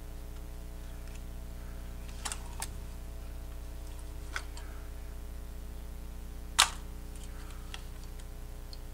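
Sharp little plastic clicks and taps as the DJI Mini SE drone's folding arm and body are handled and worked off the mount. There are a handful of clicks spread over several seconds, the loudest about two-thirds of the way through, over a steady low hum.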